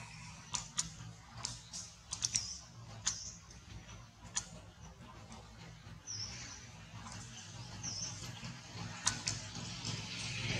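Forest ambience: short high-pitched chirps several times, with scattered sharp clicks and a low steady hum underneath.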